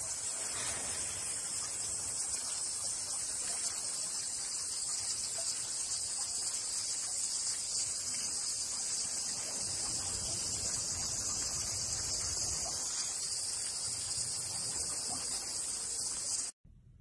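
A steady, high-pitched shrill hiss that holds at one level and cuts off suddenly near the end.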